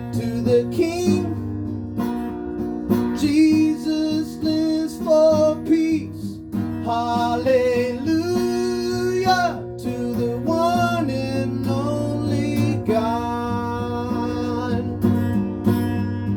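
Acoustic guitar strumming chords under a sung vocal line of long, wavering held notes, without clear words.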